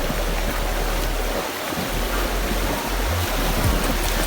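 Rushing whitewater of a river rapid: a steady, even rush of water with a low rumble underneath.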